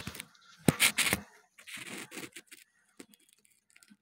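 Metal knocks and scraping as a truck gearbox's splined input shaft is worked into the clutch disc hub. Two sharp knocks come about a second in, then fainter scraping and a few light clicks.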